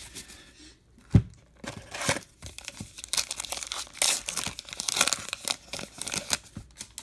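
Foil baseball-card pack wrapper being torn open and crinkled by hand, in a quick run of short rustling tears. A single sharp knock about a second in is the loudest sound.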